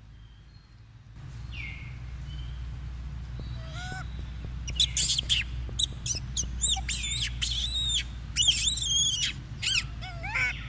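High-pitched animal calls: a quick run of short, arched chirps and squeaks starting about halfway through, over a low steady rumble.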